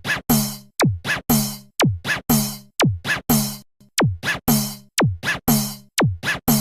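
Electronic drum-machine beat: deep kicks whose pitch drops fast, alternating with snare hits, about four hits a second.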